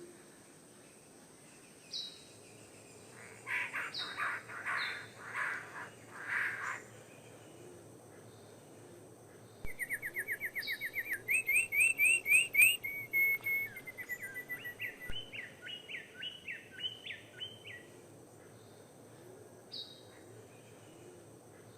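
Birds calling: a run of about six harsh calls, then a fast series of rising chirps running into a wavering trill, with short high single notes scattered between.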